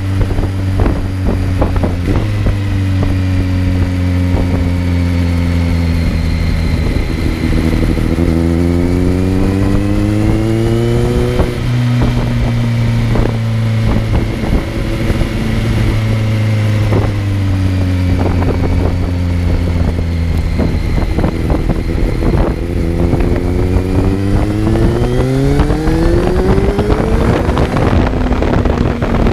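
Kawasaki Z900's inline-four engine, heard from on board while riding. Its note falls slowly as the bike slows, climbs about a third of the way in, falls again, and climbs once more near the end as it accelerates.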